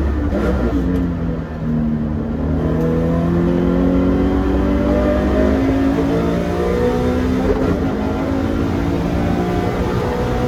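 Toyota 86's flat-four engine accelerating under load, its pitch climbing steadily, with a gear change about a second and a half in and another around six seconds.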